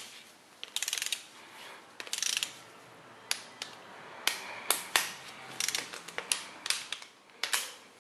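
Torque wrench ratcheting in short runs on the cylinder head bolts of a small-block Chevy 350, tightening them to 20 ft-lb, the first of three torque steps. From about three seconds in, a string of single sharp metal clicks follows.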